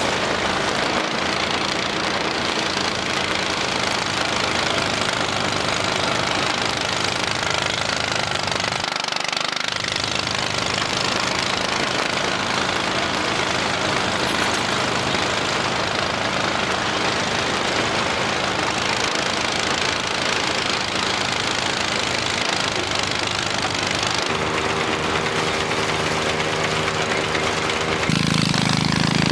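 Engine-driven rice thresher running steadily while bundles of rice stalks are fed into its drum: a low engine hum under a dense rushing, thrashing noise of straw and grain.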